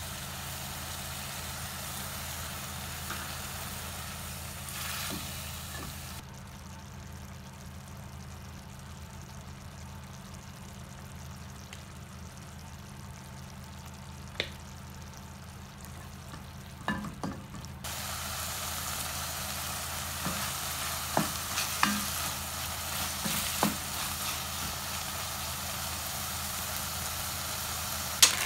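Minced meat and onions sizzling as they fry in a pot. The sizzle drops away for about ten seconds, then comes back louder, with a spatula scraping and tapping against the pot as the mixture is stirred.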